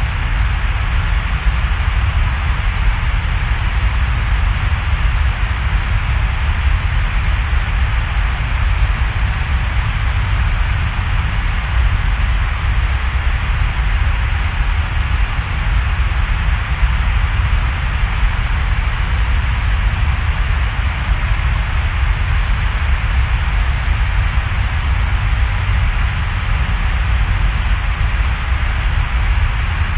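Steady, unchanging noise, a deep rumble underneath a hiss, with no music or speech.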